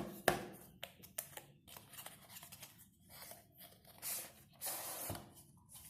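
Product box and packaging being handled and opened: a run of small clicks, scrapes and rustles, with a longer rustle of packaging about four to five seconds in.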